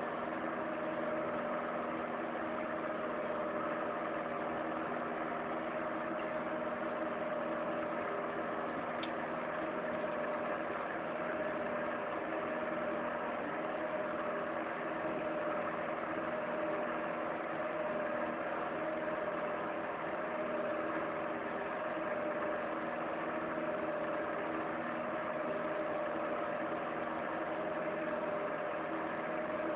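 An electric hot-air blower runs steadily: a constant motor hum with a whine held on one pitch and an even rush of air.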